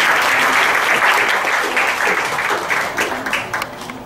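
Audience applauding, a dense clapping that thins out and stops about three and a half seconds in.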